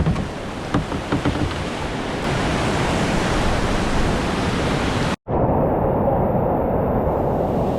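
Steady rush of whitewater on a mountain river. About five seconds in the sound cuts out for an instant and comes back duller and muffled.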